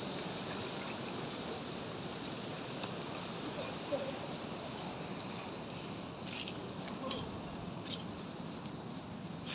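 Night-time outdoor ambience: a steady, even hiss with crickets chirping faintly, and a few sharp clicks in the second half.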